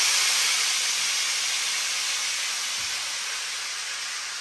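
Compressed air hissing out of a Peterbilt's front-axle air-ride suspension through an air dump valve, a steady rush that slowly fades as the air bags empty and the truck's front end drops.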